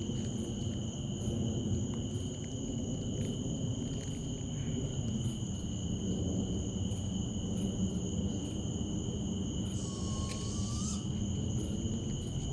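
Steady high-pitched insect drone. About ten seconds in there is a brief call, a short rising whistle with a raspy edge, that sounds like some kind of bird.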